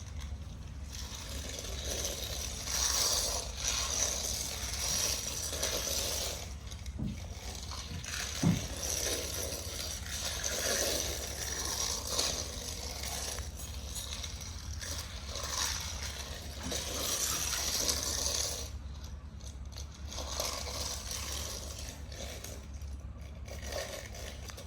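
Small Tomica toy construction vehicles being handled and moved about: irregular clicking, scraping and rattling of small plastic and metal parts, with one sharp knock about eight seconds in.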